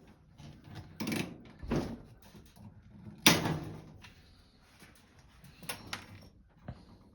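Riveting on sheet metal: a few scattered knocks and clunks, with one sharp, loud crack a little over three seconds in.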